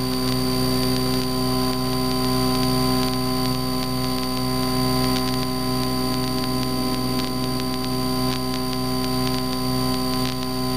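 Steady drone of a Cessna 152's four-cylinder Lycoming engine and propeller, heard through the cockpit intercom recording as a constant hum with a thin high whine and a hiss of static over it.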